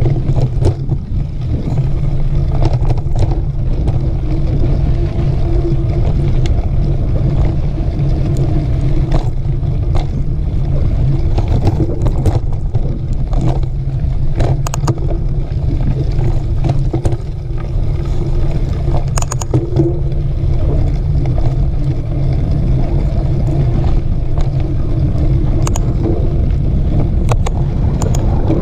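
Steady wind rumble on the microphone of a mountain bike being ridden along a dirt trail, with scattered clicks and rattles from the bike.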